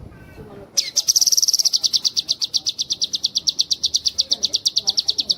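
Cucak kinoi singing a long rapid trill ('nembak'): a fast even chatter of about ten sharp notes a second, starting about a second in, a little higher at first, then steady.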